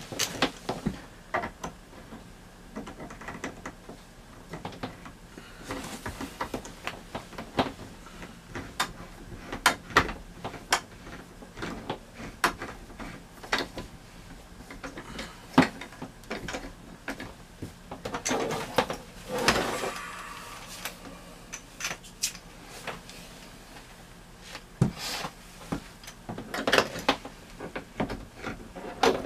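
Scattered clicks, taps and knocks of hands working plastic shower fittings: a shower hose being screwed onto the faucet and the hose holder being handled. A longer scraping rustle comes about two-thirds of the way through.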